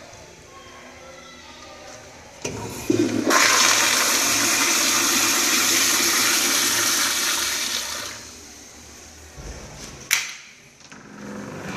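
American Standard Madera flushometer toilet flushing: a click as the valve opens about two and a half seconds in, then a loud rush of water for about five seconds that tapers off. A sharp metal click about ten seconds in as the stall door latch is worked.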